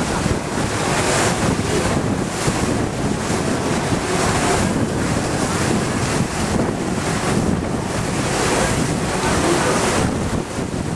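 Gusting wind buffeting the microphone on the open deck of a moving ferry, over the rush of water along the hull.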